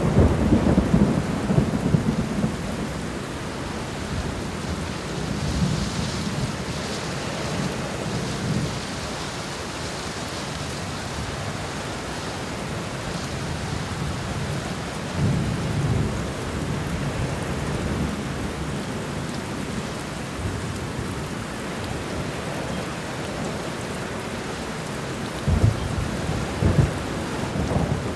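Thunderstorm: steady rain hissing down, with low rolls of thunder rumbling in at the start, again about halfway through and near the end.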